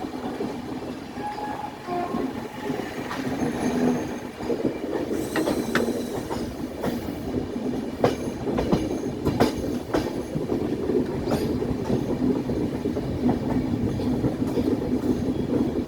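Passenger express train running on a curve: a steady rumble of the coaches with scattered sharp clicks of wheels over rail joints and a few brief faint wheel squeals from the bend.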